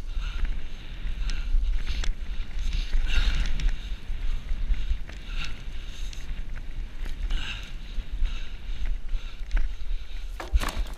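A bicycle being ridden fast on a forest trail: wind buffeting the microphone, with a soft swishing about once a second and a cluster of sharp knocks and rattles near the end.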